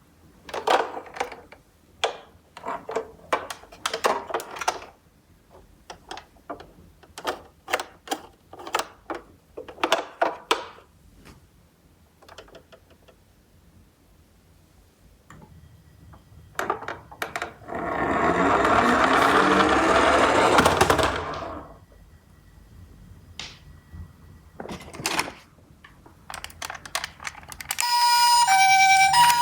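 Toy miniature cars knocking and clattering in repeated bursts of clicks, with a rolling rush of about three seconds past the middle, as of a toy car running down a slope. Near the end an electronic ambulance siren starts, alternating between two tones.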